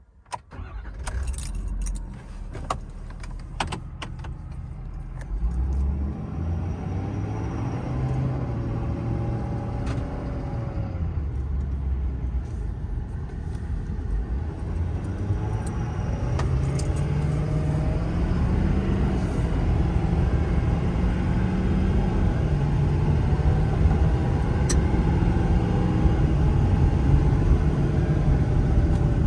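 Ford 6.7 Power Stroke turbo-diesel V8 in an F-550 pulling away and accelerating, its pitch climbing and dropping as it shifts through the gears and growing louder. A few sharp clicks and rattles come in the first few seconds.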